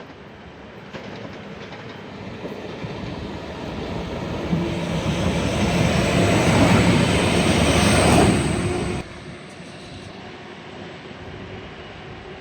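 Endeavour diesel railcar running under power, with a steady engine drone and rail noise growing louder as it comes close. It drops away sharply about nine seconds in, leaving a lower hum.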